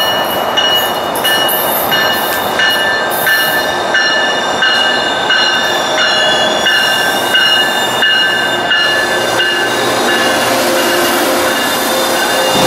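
Tri-Rail bilevel commuter train pulling into the station and braking. Its brakes and wheels squeal in several high, steady whistling tones that cut out and come back every second or so over the rumble of the coaches.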